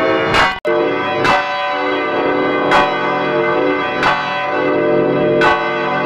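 A single swinging church bell rung by its clapper, struck five times at an even pace of about one stroke every 1.4 seconds, each stroke ringing on into the next. A brief break in the sound about half a second in, where the recording is cut.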